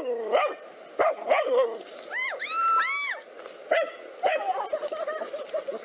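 Dogs barking repeatedly at a snake they are confronting, in short sharp barks, with a run of high-pitched yelps about two seconds in.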